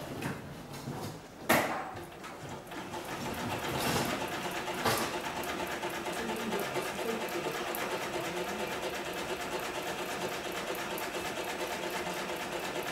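Cowboy 7461-37 long-arm cylinder-bed walking-foot lockstitch machine sewing a heavy fabric tube. A sharp knock comes about a second and a half in, and from about four seconds the machine runs steadily at an even, rapid stitching rhythm.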